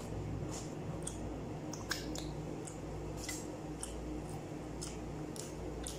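Eating by hand: soft wet clicks and smacks of chewing, tearing flatbread and dipping it into goat trotter stew, about two a second at irregular spacing, over a steady low hum.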